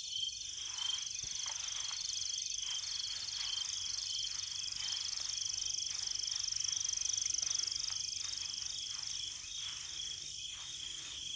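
Night chorus of crickets: steady high-pitched chirring, with one insect trilling in short repeated bursts during the first half.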